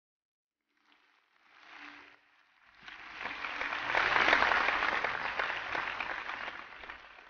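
Applause from a crowd and the people on stage: a faint patter about a second in, then clapping swells about three seconds in, peaks and slowly tapers off near the end.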